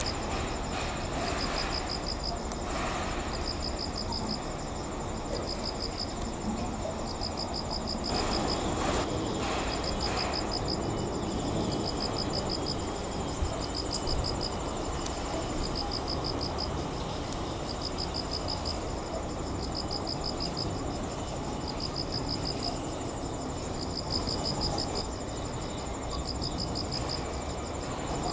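Insects chirping in short pulsed bursts every second or two over a steady high trill, with a low background rumble underneath.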